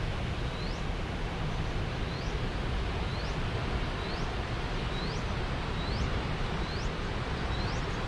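Steady rushing roar of a large monsoon-fed waterfall, with wind buffeting the microphone. Over it, a bird repeats a short rising chirp about once a second.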